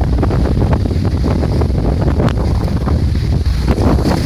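Strong wind buffeting the microphone with a steady low rumble, over rough sea at high tide surging and breaking against a promenade sea wall.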